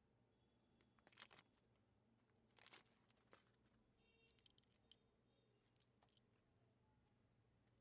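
Near silence broken by a few faint crinkles and clicks, the sound of foil wrappers and plastic toy capsules being handled while candy eggs are opened.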